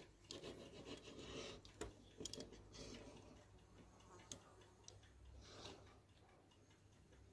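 Faint rubbing and a few light clicks of a die-cast model car being handled and pushed along a wooden board by hand.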